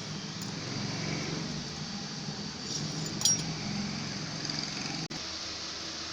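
A few light metallic clinks over a steady low hum, the loudest about three seconds in.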